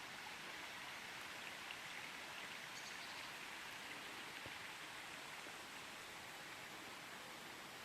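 Faint, steady rushing of a small forest creek flowing down a steep ravine.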